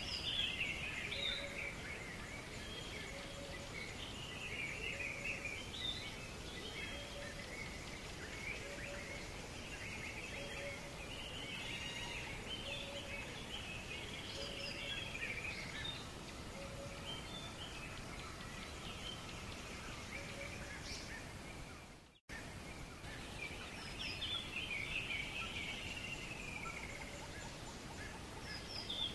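Several small birds chirping and singing in quick bursts, with a lower short call repeated evenly about once every second or so through the first half and again near the end, over a steady background hiss. The sound cuts out for an instant about 22 seconds in.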